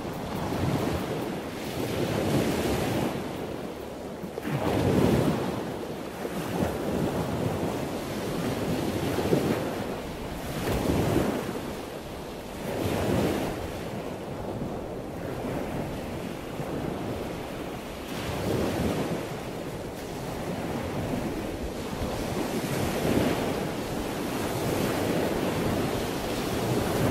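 Ocean surf: waves breaking and washing in, rising and falling in irregular swells every few seconds.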